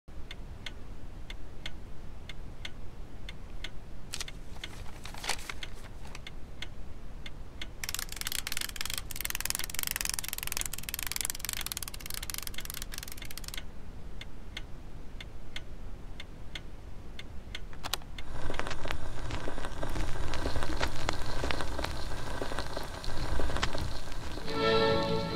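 Horn gramophone handled and started up: scattered clicks and a few seconds of hiss, then, about two-thirds of the way in, the denser crackle of the needle running in the record's groove. The first notes of music come in right at the end.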